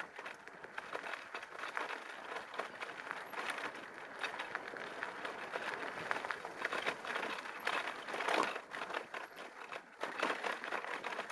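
Riding noise of an e-bike rolling along a forest road: a continuous crackling rustle of many small clicks, rising and falling in loudness, from the tyres on the grit and gravel of the road surface.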